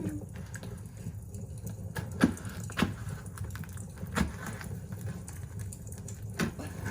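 Cardboard gift box being cut open and handled: a few scattered sharp knocks and clicks over a low background hum.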